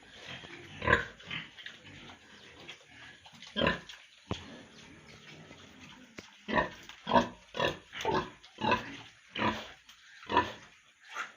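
Pigs in a pen calling in short separate bursts: two calls in the first few seconds, then a quick run of about eight calls roughly half a second apart from about six and a half seconds in.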